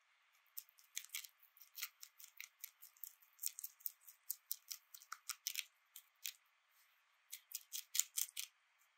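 Rabbit crunching a fresh lettuce leaf: a quick, irregular run of crisp bites and chews, pausing briefly about six and a half seconds in before going on.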